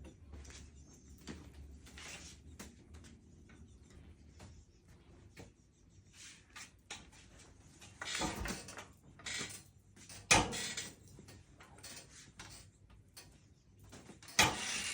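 A small whisk broom being knocked and rattled in short irregular bursts, with louder clusters of knocks about eight seconds in, about ten seconds in, and near the end.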